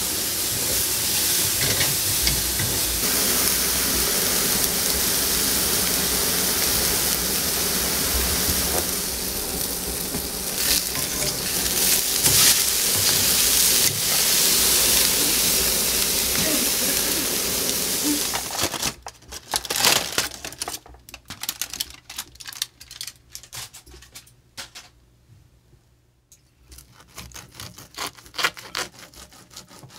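Thick ribeye steaks sizzling steadily on a hot barbecue grill as they cook. After about nineteen seconds this gives way to quieter scattered clicks and scraping as the grilled steak is sliced with a knife on a plastic cutting board.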